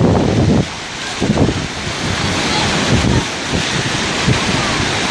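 Rough sea surf breaking and washing along a sandy beach, with strong wind buffeting the microphone in repeated low gusts.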